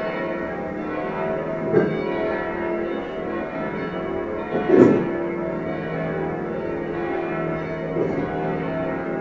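Church bells in a bell tower ringing a festive peal: several bells' tones overlap and hang on, with fresh strokes about two, five and eight seconds in, the one about five seconds in loudest.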